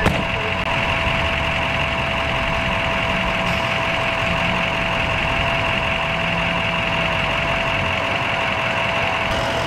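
Fire trucks' diesel engines idling: a steady running drone with a thin, steady whine held over it.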